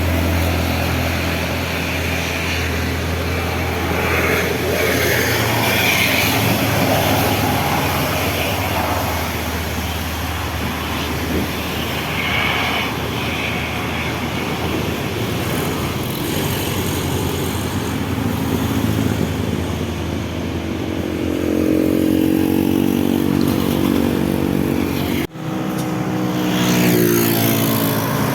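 Road traffic passing: a steady run of vehicle engines. Late on, one passing engine's pitch climbs and falls, and a brief dropout comes near the end.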